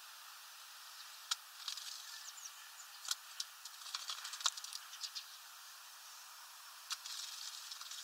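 Great tit bathing in a shallow water dish: short flurries of splashing and wing-fluttering with sharp drips, about a second in, again from about three to five seconds, and once more near seven seconds.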